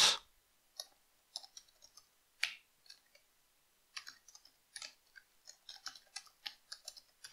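Typing on a computer keyboard: quiet, irregular keystrokes, coming in quicker runs in the second half.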